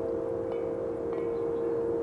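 Large wind chimes ringing with low, sustained tones, with a couple of fresh strikes about half a second and just over a second in. Wind noise underneath.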